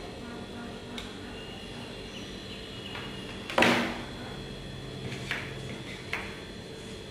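Crafting handling noise on a wooden tabletop: one loud knock about halfway through, as a hot glue gun is set down, then two lighter clacks and a few faint clicks of sticks being handled.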